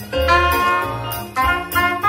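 Live soprano saxophone playing a melody over electric keyboard accompaniment, with low bass notes on the beats and a light high-pitched ticking rhythm.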